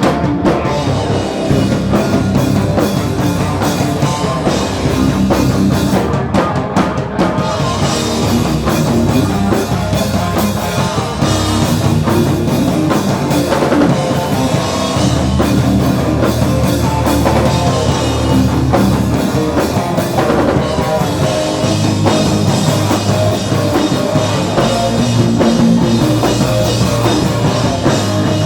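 Punk rock band playing live at full volume: pounding drum kit and electric guitars, continuous and dense.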